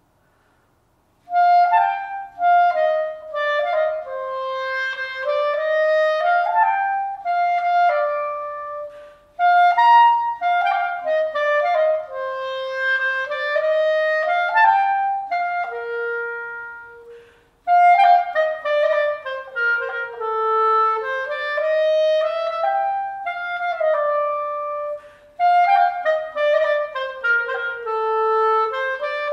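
Solo clarinet playing a flowing melody in phrases of several seconds, starting about a second in, with brief breaks between phrases about 9, 17 and 25 seconds in. It demonstrates the tone the clarinet should have when the embouchure and wind are right and the reed is good and responsive.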